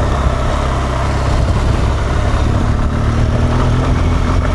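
BMW R1200 GS motorcycle's boxer twin engine running steadily under way, with the pitch creeping up slightly in the second half.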